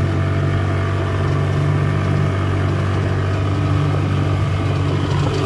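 Yamaha 25 hp outboard motor running steadily at low throttle, pushing a small wooden boat along: an even hum, held back because the river is still too shallow to run it hard.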